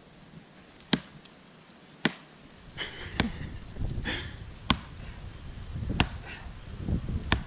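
Dead pine branches being broken by hand for firewood: several sharp cracks of snapping wood a second or so apart, with brittle rustling of twigs in between.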